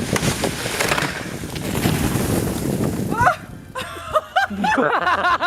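A loud rush of noise for about three seconds, then several high, rising-and-falling shouts from people.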